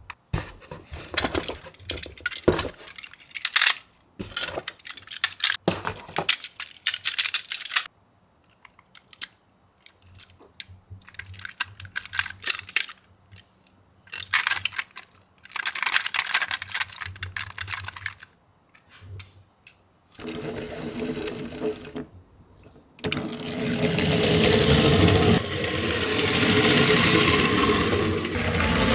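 Toy ambulance minicars clicking and rattling as they are handled, with sharp small clicks in quick clusters. A louder, steady noise sets in during the last several seconds.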